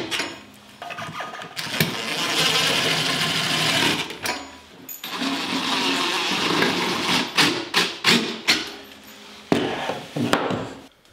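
A power drill driving screws to fasten a floor vent grate, running in two spells of about two seconds each, with several sharp clicks and knocks of the screws and metal grate in between and afterwards.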